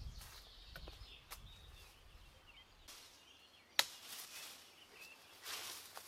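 Footsteps and rustling on dry leaf litter with scattered small clicks of twigs, and a single sharp crack a little past halfway, the loudest sound. Faint birdsong in the background.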